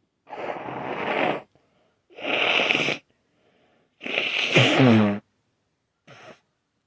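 A congested person's nose letting out three loud, wet, snotty blasts, each about a second long, from a nose clogged up with mucus. The third blast ends with a voiced sound falling in pitch, and a short faint one follows near the end.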